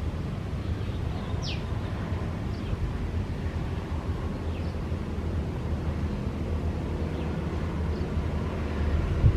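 Steady low outdoor rumble, with a few short, high, falling chirps over it, the clearest one about a second and a half in.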